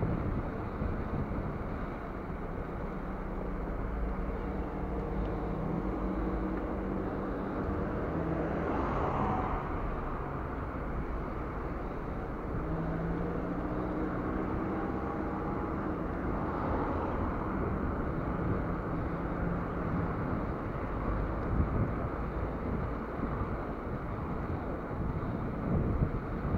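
Steady rumble of wind on an action camera's microphone and bicycle tyres rolling on asphalt while riding in street traffic, with car engines running close by.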